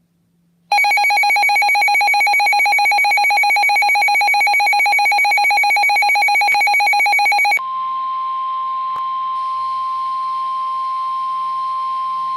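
Electronic emergency alert tones: a loud, rapidly pulsing buzzy alert tone for about seven seconds, then a steady single-pitch alarm tone near 1 kHz, the 1050 Hz NOAA Weather Radio warning alarm tone that heads a National Weather Service warning.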